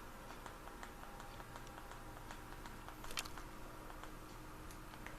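Faint steady hum of a Hunter Highbury 52-inch ceiling fan running on medium speed, with light scattered ticks and a single click about three seconds in.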